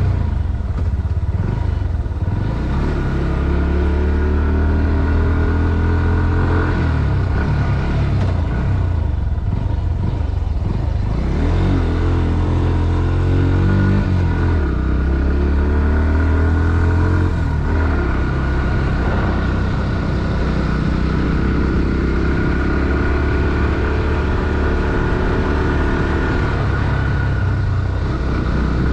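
Bajaj Pulsar NS160's single-cylinder four-stroke engine pulling hard under load, its pitch climbing through each gear and dropping back at each shift, several times over.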